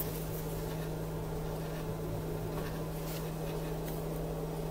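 Steady low electrical hum with a faint hiss, unchanging throughout, with no distinct clicks or knocks.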